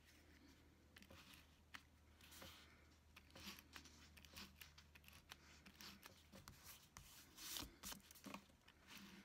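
Handheld correction tape drawn across planner paper: several short, faint scratchy strokes with small clicks as the dispenser is pressed and lifted.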